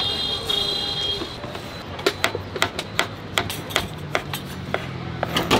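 Chef's knife slicing black olives on a plastic cutting board: quick, sharp taps of the blade on the board, about four a second, starting about two seconds in.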